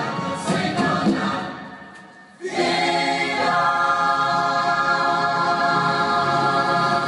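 A choir singing in full harmony. It fades away about two seconds in, then a new passage starts abruptly with long held chords.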